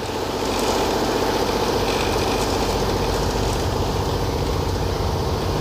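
Small ferry boat's inboard engine running steadily under way, a fast even throb, with a steady hiss of water and wind over it.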